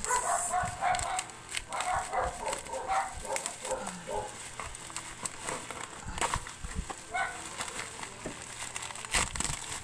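Bubble-wrap packaging crinkling and crackling as hands pull it off a small cardboard box. The loudest crackle comes about nine seconds in. A dog barks several times in the first few seconds.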